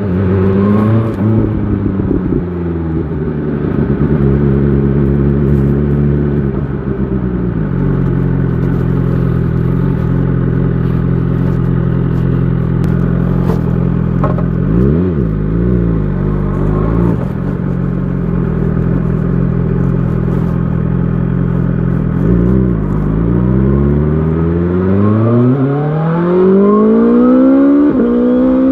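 BMW S1000 XR's inline-four engine idling steadily, given one quick throttle blip about halfway through. Near the end it revs up smoothly, with the pitch rising steadily, as the bike pulls away.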